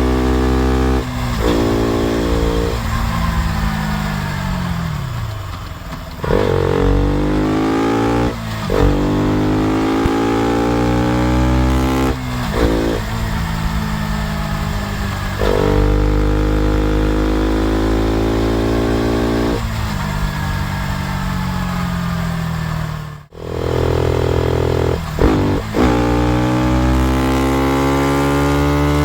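KTM RC 200's single-cylinder engine and exhaust pulling hard through the gears: the pitch climbs, drops sharply at each shift, and falls away as the throttle is eased, then climbs again.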